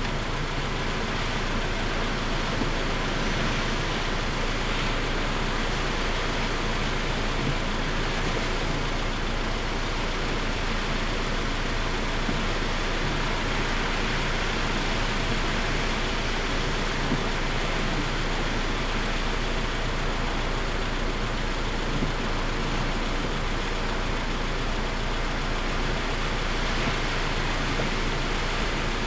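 Steady roar of typhoon wind and heavy surf on a coast, an even noise with no breaks or single crashes standing out.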